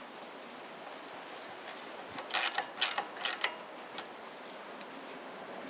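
Short clicks and rattles of engine parts being handled and fitted by hand, in a quick cluster about two seconds in and one more click a little later.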